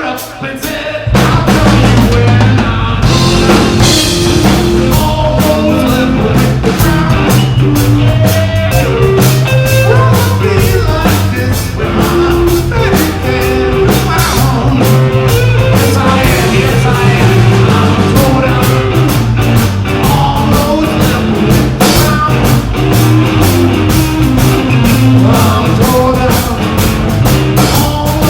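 Live rock band playing, with drum kit, guitar and bass. The band plays more quietly for about the first second, then comes in loud and keeps a steady groove.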